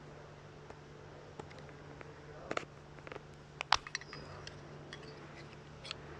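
Small, sharp plastic clicks and snaps from a BMW key fob's battery cover being worked loose and pried off, exposing the coin cell. The clicks come in scattered clusters, the loudest about three and a half seconds in, over a low steady hum.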